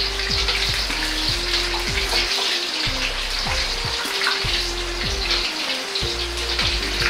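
Pork pieces deep-frying in a wok of oil: a steady sizzle with fine crackling, over background music.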